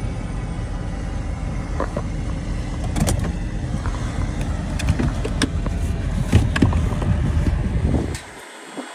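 A vehicle engine or motor running steadily, with several sharp metallic clicks and knocks, then cutting off suddenly about eight seconds in.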